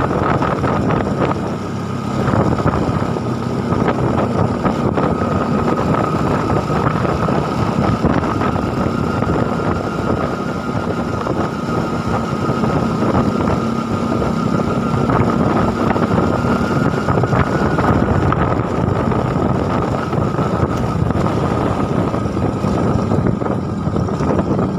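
A small engine running steadily with a constant whine, with wind rushing over the microphone.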